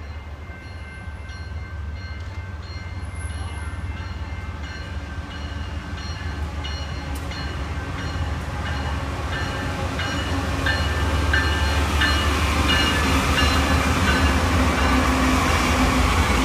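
Diesel locomotives leading a BNSF freight train approach and pass, their engine rumble and wheel noise growing steadily louder, while a bell rings over it in a steady rhythm.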